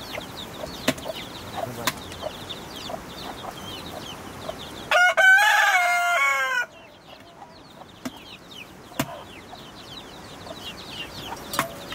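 A rooster crows once, about five seconds in, for under two seconds, falling in pitch at the end. Faint short high chirps and a few sharp clicks run underneath.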